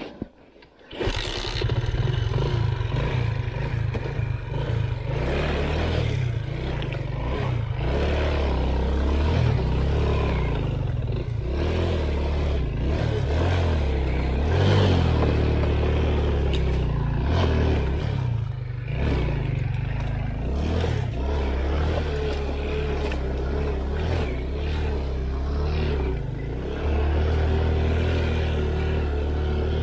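All-wheel-drive off-road motorcycle engine running under load, its revs rising and falling, coming in loud about a second in.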